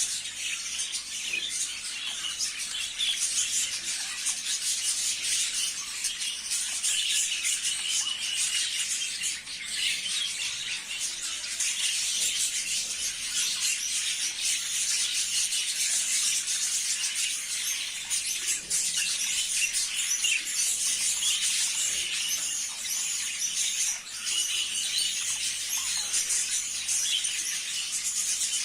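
A flock of budgerigars chattering without pause, many birds chirping and warbling over one another in a dense, steady wash of high chirps.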